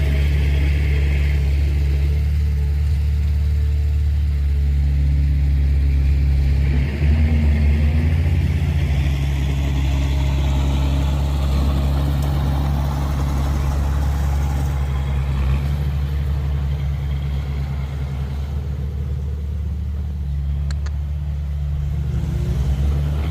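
Low, steady rumble of a running motor vehicle.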